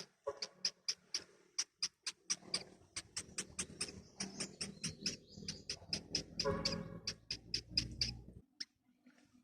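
Baby birds (nestlings) cheeping, a fast run of short high-pitched peeps about three or four a second, the begging calls of hungry chicks, stopping shortly before the end. A low rumble sits under the peeps for most of the run and cuts off with them.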